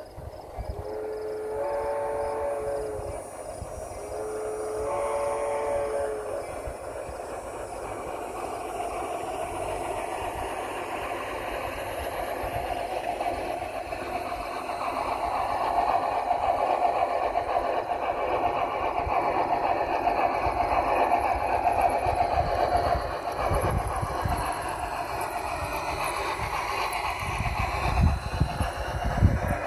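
Large-scale garden-railway model steam locomotive sounds two long whistle blasts, then its freight train draws near and rolls past close by. A steady rumble and clatter of wheels on track grows louder, with heavier knocks near the end as the cars go by.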